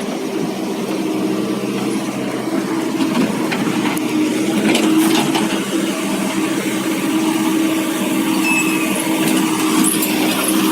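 An engine running steadily, with scattered clicks and knocks over it.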